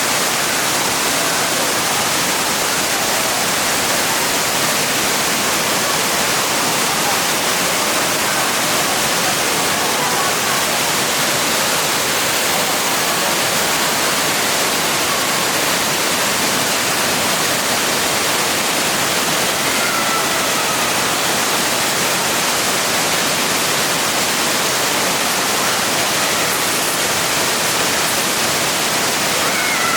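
Cascading waterfall: a steady, even rush of falling water.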